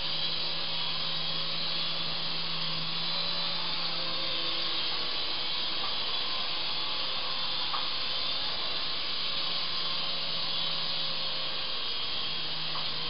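Syma S109 mini Apache R/C helicopter in flight: its small electric motors and rotor blades whirring steadily, the whine shifting a little in pitch as it is flown.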